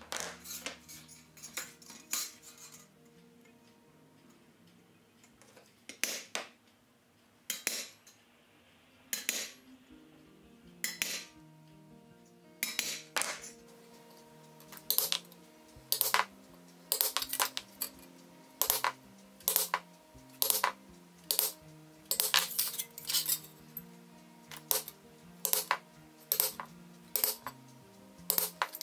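Ball-peen hammer striking a punch on a sheet-metal carriage-lamp floor, sharp metallic taps, a few at first, then a steady run of about one or two a second, some in quick pairs: punching ventilation holes for the oil burner's flame.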